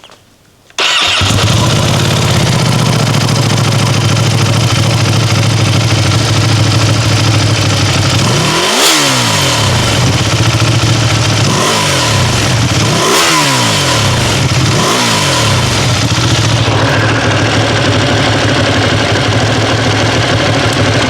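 Ducati Panigale V2's Superquadro V-twin on its stock exhaust starting about a second in and settling into an idle, then blipped up four times between about nine and fifteen seconds in, each rev rising and falling back to idle.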